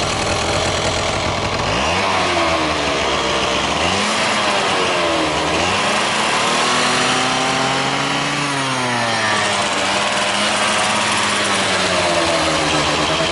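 Honda Gyro Canopy TA02's 49cc two-stroke single-cylinder engine, fitted with new piston rings, being revved. It idles, then from about two seconds in rises and falls in pitch several times with the throttle, holds a higher speed for a while and drops back near the end.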